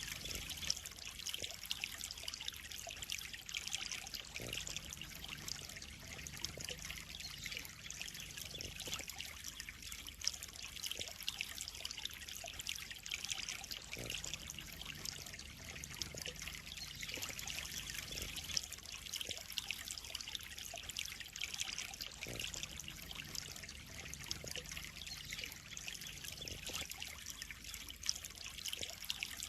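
Water trickling and splashing steadily into a koi pond, a continuous splatter with small drip-like clicks scattered through it.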